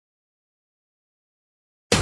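Dead silence, then a loud, dense wash of sound cuts in abruptly at the very end.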